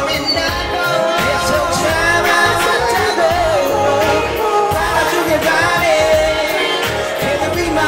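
Male voice singing a Korean pop song through a microphone and PA, over accompaniment with a steady drum beat.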